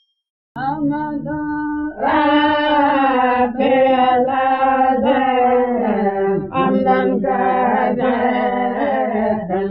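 Vocal chanting of a slow religious song with long held, wavering notes. It comes in softly about half a second in and grows fuller and louder at about two seconds.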